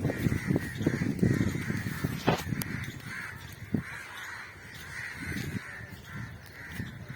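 Birds calling repeatedly over a low rumbling noise that fades over the first few seconds.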